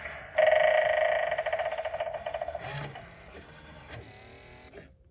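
Gemmy animated eyeball doorbell playing its built-in sound effect through its small speaker: a loud, rapidly warbling sound starts about half a second in and fades over about two seconds. Fainter sounds follow and cut off near the end.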